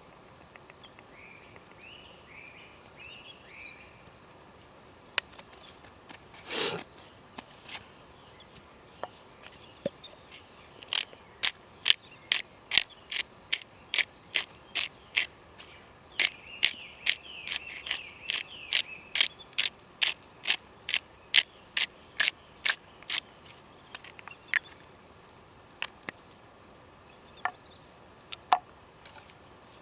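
A run of sharp, evenly paced clicks, about two a second, starting about eleven seconds in and stopping some twelve seconds later, with faint high chirping in the background.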